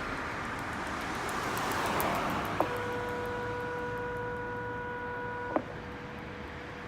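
Outdoor traffic sound once the chime has ended: a vehicle passes, swelling and fading. Then a steady tone switches on with a click about two and a half seconds in and off with a click about three seconds later.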